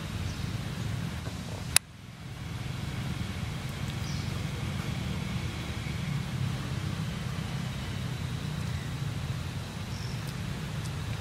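Steady low background rumble, with one sharp click about two seconds in.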